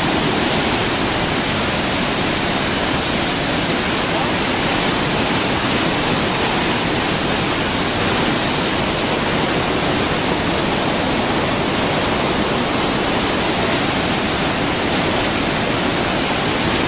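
Loud steady roar of a big river waterfall, the Spokane Falls in full flow, a dense unbroken rush of crashing water.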